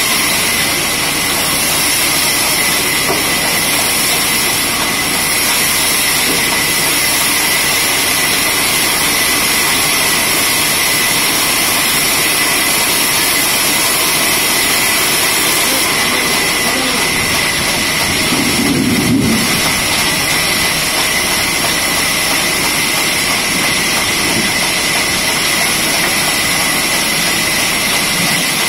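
Horizontal band sawmill running: a steady high whine over a loud hiss, with a brief low knock about two-thirds of the way in.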